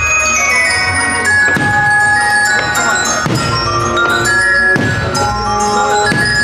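Christmas show music with bells, glockenspiel and chimes carrying a melody, with sharp hits every second or so.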